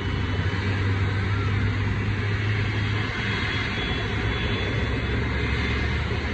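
Steady aircraft noise as an Airbus A220-300 is pushed back by a tow tractor: a low steady hum under an even rush.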